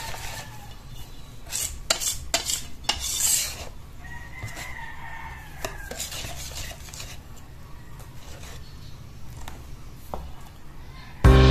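Wire whisk beating thick pancake batter in a stainless steel bowl, the wires clicking and scraping against the metal, with the sharpest clinks in the first few seconds.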